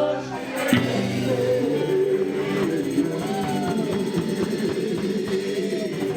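Live band music led by guitar, with sustained notes and bent guitar lines and little singing.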